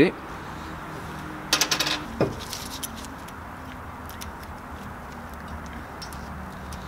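Metal clinking of a piston-ring expander pliers and a removed piston ring being handled on a piston: a brief jingle about one and a half seconds in, a sharp click just after, then faint small ticks as the pliers are fitted over the next ring.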